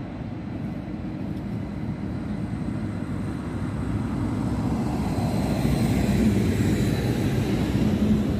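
Vy Class 75 (Stadler FLIRT) electric multiple unit approaching and passing close by: a low rumble of wheels on rails that grows steadily louder, with a faint high whine joining about halfway through.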